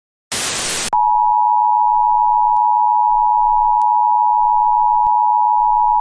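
Emergency-broadcast alert audio: a short burst of harsh static-like noise, then a single steady high-pitched tone about a second in that holds unbroken.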